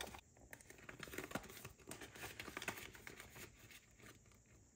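Faint rustling and light clicks of clear plastic zippered envelopes and paper being handled.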